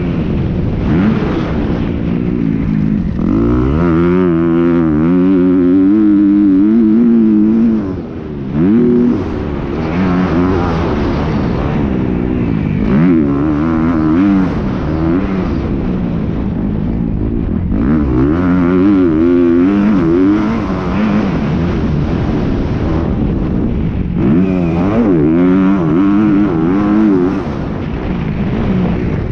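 Motocross bike engine heard from on board, revving up and falling back again and again as the rider accelerates and rolls off the throttle around the track, with a short throttle chop about eight seconds in.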